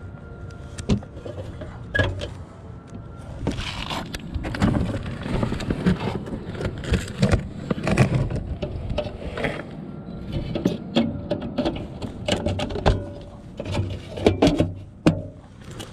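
Handling noise: irregular knocks, clicks and clatter as hands work sheet-metal panels and parts of a package HVAC unit, with rustling of a sleeve brushing close to the microphone about halfway through.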